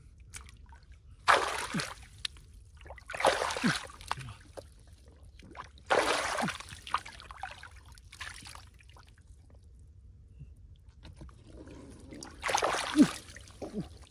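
Shallow field water splashing and sloshing in four bursts: about a second in, around three seconds, around six seconds, and again near the end.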